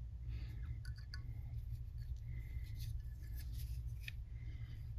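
Faint scratchy rubbing and small clicks of fly-tying handwork: dubbing twisted onto the tying thread and wrapped onto the hook for a thorax. A steady low hum runs underneath.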